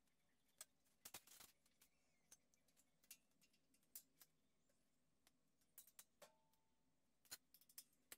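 Near silence with faint, scattered metal clicks and ticks from an Allen key and small parts being worked at the bolts of an aluminium extrusion and angle-iron bracket. A short cluster of clicks comes about a second in, and a brief ringing note a little after six seconds.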